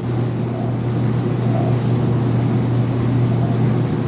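A steady, low machine hum, like a motor or engine running continuously.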